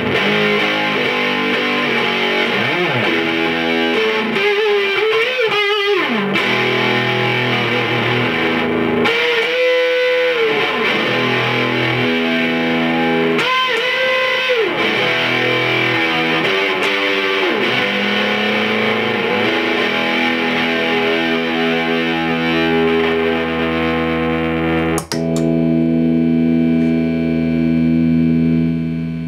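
Electric guitar played through a Kitchen Electronix Tradfuzz fuzz pedal: fuzzy chords and lead lines with string bends. Near the end comes a sharp click, then a held, ringing chord.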